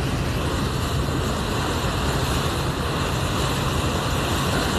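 Wind rushing and buffeting against a phone's microphone on the deck of a moving boat. It is a steady, loud noise with a fluttering low rumble underneath.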